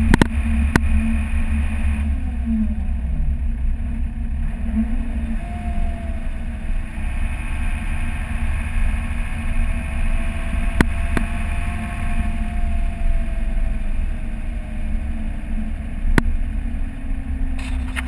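Mercedes-Benz Unimog running at road speed, a steady low engine and drivetrain rumble. About two seconds in the engine note falls and climbs back over a couple of seconds, and a faint whine joins from about five seconds in, with a few sharp knocks.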